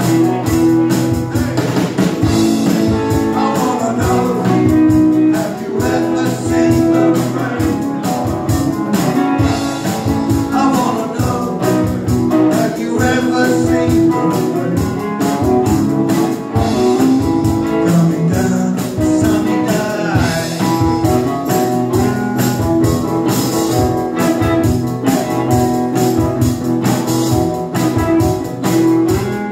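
Live acoustic band playing a mid-tempo rock song: strummed acoustic guitar and a three-string cigar box guitar over a drum kit keeping a steady beat, with singing.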